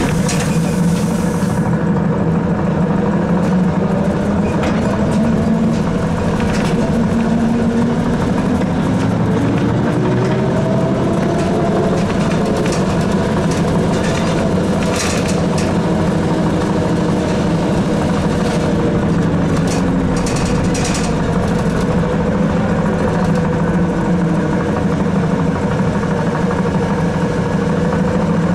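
Interior sound of a ZiU-682 trolleybus under way: a steady electrical hum with a traction-motor whine that rises in pitch as it speeds up, then falls as it slows. Scattered clicks and knocks run through it, with a hiss in the first couple of seconds.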